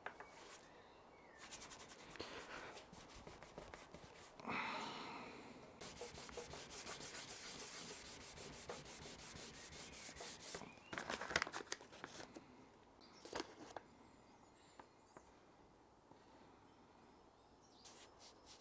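Oak board being worked by hand: soft rubbing over the wood first, then a scraper drawn across the surface in quick, short, even strokes for several seconds, followed by a few sharp clicks.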